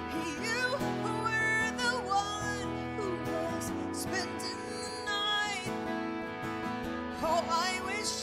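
Live acoustic pop ballad: a woman singing sustained phrases with vibrato over acoustic guitar.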